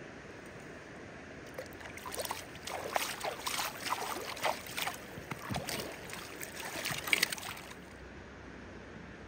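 Close, irregular splashing and sloshing of shallow river water as a rainbow trout is let go from the hands, lasting several seconds and stopping suddenly near the end, with the steady faint rush of the river underneath.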